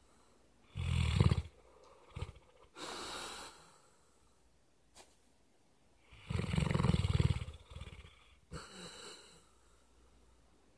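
A sleeping dog snoring: two loud rattling snores, each followed by a softer airy breath.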